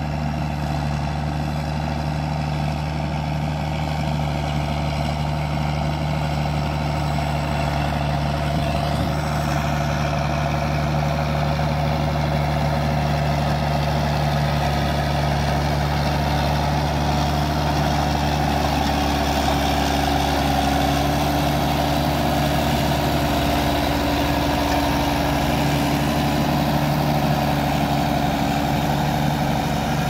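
Ford TW25's six-cylinder turbo diesel running steadily under ploughing load through a straight-pipe exhaust, pulling a four-furrow plough; it grows a little louder as the tractor draws nearer.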